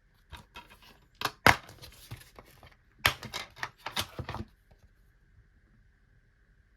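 DVD cases and packaging being handled: a run of clicks, snaps and rustling lasting about four seconds, with the sharpest snaps about a second and a half in and again about three seconds in.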